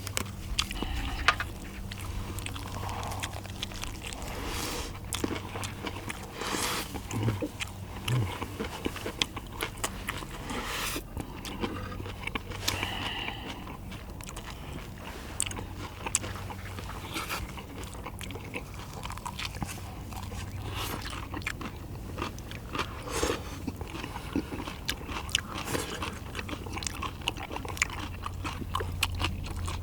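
Close-up eating sounds: food being bitten and chewed, with many short wet clicks throughout.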